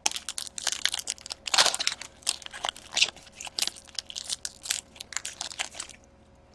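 Crinkling and rustling of trading-card packaging as cards are handled during a box break: a quick run of crackly strokes that stops about six seconds in.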